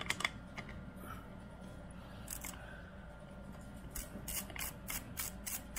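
Metal clicks and scrapes from an AR-15 muzzle brake being handled and twisted by hand on the barrel: a few scattered clicks, then from about four seconds in a quick, even run of about four clicks a second.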